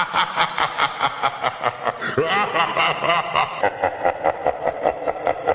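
Rapid, rhythmic laughing, about six pulses a second.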